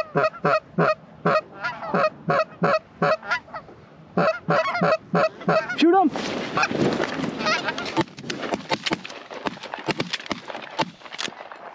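Goose honks and clucks in a quick series, about three a second, as hunters call a flock of Canada geese in over the decoys. About six seconds in a dense burst of noise breaks out as shotguns open fire on the flock, and scattered sharp cracks follow.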